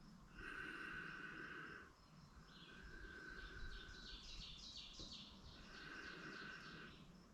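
Faint birdsong with insects calling: three held, even-pitched notes of about a second and a half each, and a run of quick repeated chirps in between.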